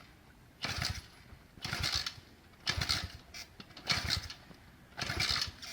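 SSR 125cc pit bike being kick-started cold with the choke on: five kicks about a second apart, each turning the engine over briefly without it catching. The bike is hard to start because of the cold.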